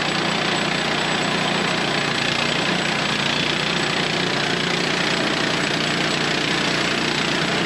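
Gasoline engine of a sawmill running at a steady speed.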